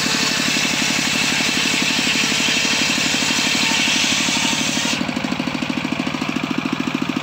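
Engine-driven circular saw ripping a wooden plank lengthwise, the blade's cutting hiss over the engine's steady pulsing run. The cut ends about five seconds in and the hiss drops away sharply, leaving the engine running and the blade spinning free.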